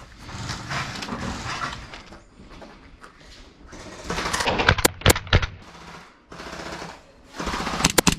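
Gel ball blaster firing in two short rapid bursts, the first about four seconds in and the second near the end, each a quick run of sharp pops. Before them there is a stretch of rustling movement noise.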